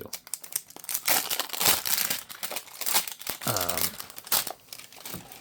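Packaging crinkling and rustling as it is handled, a dense run of crackles, with a brief voiced sound about three and a half seconds in.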